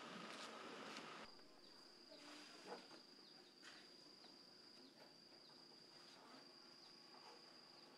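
Faint outdoor ambience. After about a second, a single steady high-pitched insect call holds on, with a few faint soft clicks.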